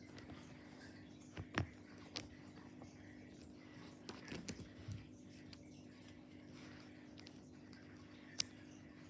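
Scattered faint clicks and taps of small plastic toy pieces being handled, over a steady low hum.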